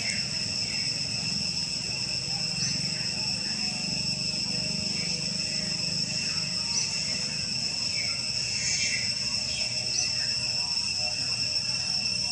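Steady high-pitched drone of insects, with short downward chirps repeating every couple of seconds.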